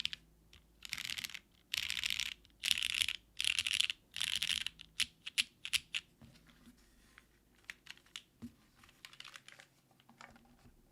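Typing on a gasket-mounted WaifuWorks Morgan TKL mechanical keyboard with lubed Cherry MX2A Black linear switches on an aluminum plate and GMK keycaps. For about five seconds it is fast typing in quick runs of keystrokes; after that come single, slower key presses that grow fewer and fainter.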